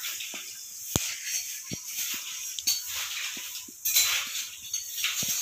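Liquid boiling hard in a clay pot on a gas burner: a steady hiss with scattered pops and clicks, the sharpest about a second in and again just under two seconds in, and the hiss swells briefly near the end.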